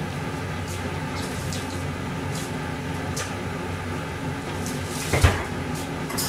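Steady kitchen background hum with a few faint clicks, and a single sharper knock about five seconds in, like a cupboard door or a dish being handled off to the side.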